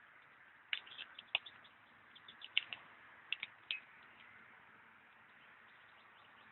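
Newly lit campfire of sticks and paper just catching, crackling with a cluster of sharp snaps for the first few seconds, then only a faint hiss.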